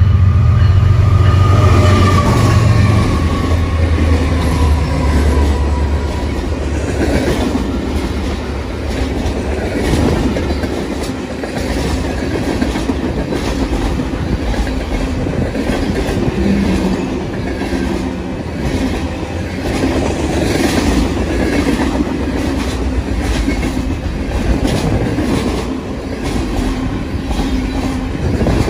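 A diesel-hauled freight train passes close by. For the first several seconds the locomotives' diesel engines are loud and deep. After that the freight cars roll past with a steady clickety-clack of wheels over the rail joints.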